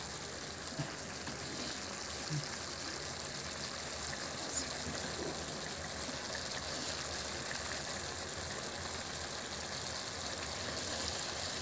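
Chicken and potato pieces sizzling steadily as they fry in a wok, with a few faint clicks.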